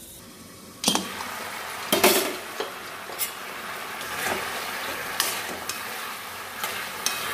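A metal lid clinks off a kadai about a second in, then chicken pieces bubble and sizzle in spiced water while a steel spoon stirs them, knocking against the pan now and then.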